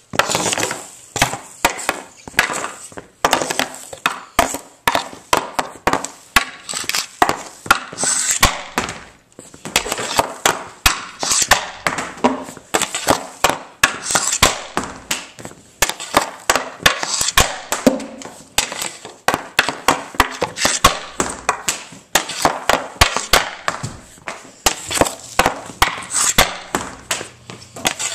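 Hockey pucks being shot off a concrete floor with a TPS R8 stick: a quick run of sharp cracks, a couple a second, as the stick slaps the concrete and the pucks and the pucks smack into the concrete wall. The hits ring in the bare concrete room.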